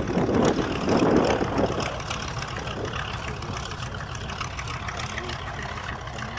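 North American B-25J Mitchell's twin Wright R-2600 Twin Cyclone radial engines running as the bomber rolls along the runway. The sound is louder for the first couple of seconds, then settles to a steadier, quieter drone.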